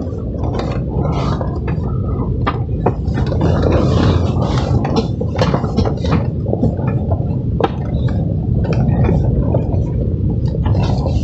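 Car engine running steadily under load while the car drives slowly over deep rutted mud, heard inside the cabin, with irregular knocks and rattles from the body and wheels.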